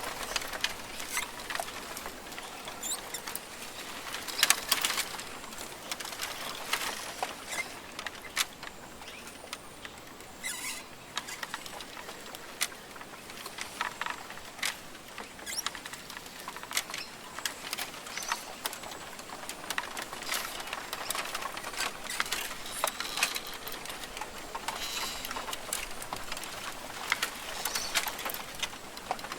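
Rainforest ambience: a dense, irregular patter of small clicks and ticks over a steady hiss, with a few faint bird chirps.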